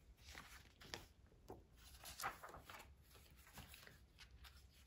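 Faint paper rustling as the pages of a picture book are turned: a handful of soft, short rustles, the strongest about two seconds in.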